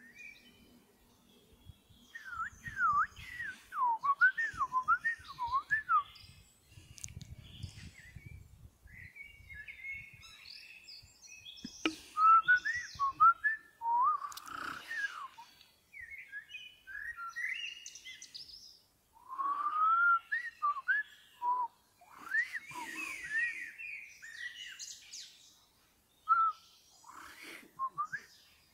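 Eurasian blackbird singing: several separate fluty, warbling phrases with pauses between them, some ending in a higher twitter.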